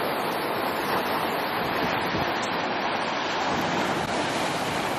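Ocean surf washing steadily on the shore, with wind on the microphone.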